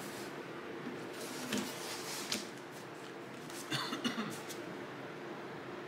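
Faint handling noise from a guitar body being turned over on a workbench: a few soft knocks and rustles, with a small cluster of them about four seconds in, over a low steady room hum.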